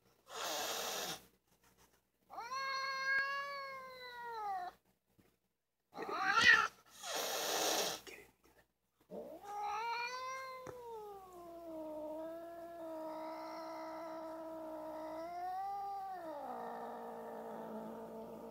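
Black domestic cat yowling: a drawn-out yowl of about two seconds, a short, sharp cry that rises and falls in pitch (the loudest call), then one very long yowl lasting about ten seconds that bends in pitch and drops lower near its end. Short bursts of noise come between the first calls.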